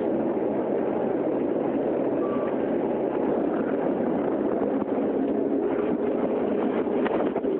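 Steady engine and road noise of a moving city bus heard from inside the passenger cabin.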